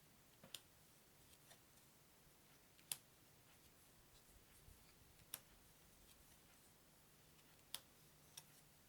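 Cards being laid down one at a time, each giving a short, sharp tap: five taps, roughly two and a half seconds apart, over near silence.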